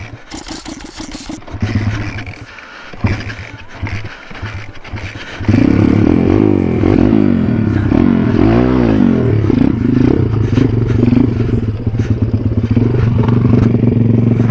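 MRF 140 RC pit bike's single-cylinder four-stroke engine, running in short uneven spurts at first, then from about five seconds in running loud and continuously with the revs rising and falling.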